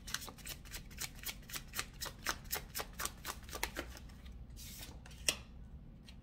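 A deck of tarot cards being shuffled by hand: a rapid run of light card snaps, about five a second, for roughly four seconds. Near the end come a brief brushing slide and a single tap as cards come out onto the table.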